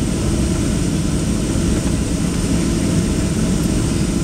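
Steady low rumble of cabin noise inside a Boeing 737-800 rolling slowly after landing: its CFM56 jet engines running at low power, with the wheels rumbling on the runway.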